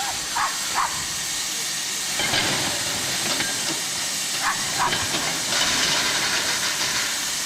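Erie Type A steam shovel working, with a steady hiss of steam that swells about two seconds in and again later. Two pairs of short high-pitched chirps are heard over it.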